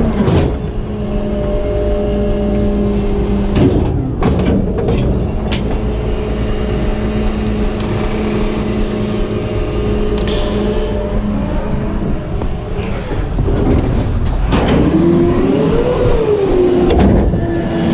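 EZ Pack rear-loader garbage truck running its packer cycle: the engine and hydraulics drone steadily at raised speed while the blade sweeps and compacts bagged trash in the hopper, with a few metallic clunks about four seconds in. The pitch shifts twice as the cycle moves along, and near the end a tone rises and falls again.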